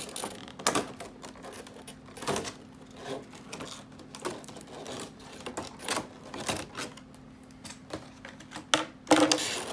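Scissors snipping packing tape and clear plastic packaging trays being handled: an irregular run of clicks, snips and crackles, with a louder plastic rustle near the end.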